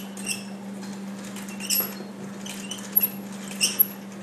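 Hand-cranked rotary egg beater turning in a metal bowl of cake batter, its gears and beaters giving short high squeaks about six times at uneven intervals.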